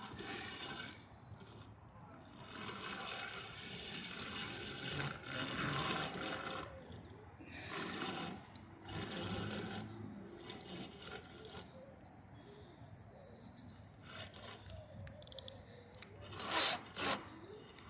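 Fishing reel being wound in spells while playing a hooked carp, its gears giving a rubbing, rasping sound. A few louder sharp noises come near the end.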